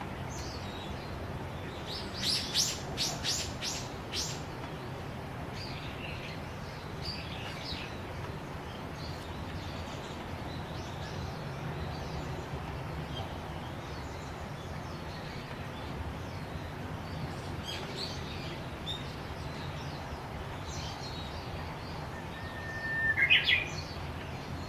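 Japanese bush warbler singing: near the end a full "hoo-hokekyo" song, a long held whistle followed by a quick rising flourish. A couple of seconds in comes a quick run of about six sharp notes, with faint scattered bird calls in between.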